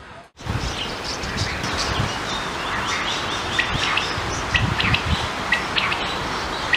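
Female quail calling: short, sharp chirps repeated irregularly, more of them in the second half, over a steady rush of wind and rustling leaves. The sound starts abruptly about a third of a second in.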